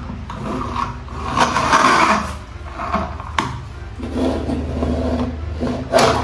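Plastic toy vehicles being pushed and rolled across a wet wooden board, their wheels scraping and rumbling in uneven swells. A sharp click comes partway through and a louder knock near the end.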